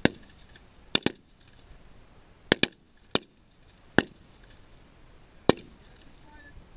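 Single rifle shots from several 5.56 mm L98A2 Cadet GP rifles firing along the line: about eight sharp cracks at uneven intervals, two of them coming as quick pairs about a second and two and a half seconds in.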